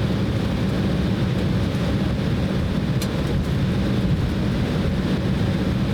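Steady cabin noise of an Embraer E190 airliner, the hum of its turbofan engines and airflow heard from inside the cabin, with a brief click about three seconds in.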